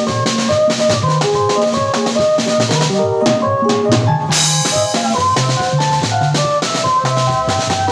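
A band playing live: a drum kit keeps a steady beat under a bass line and a melody of held notes. About three seconds in the cymbals drop out for about a second, then come back with a crash.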